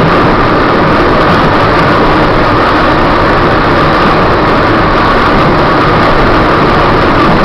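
Electric trolley car running on the rails through a tunnel, heard from inside the car: a loud, steady rumble and rattle of wheels and running gear with a faint steady hum above it, echoing off the tunnel walls.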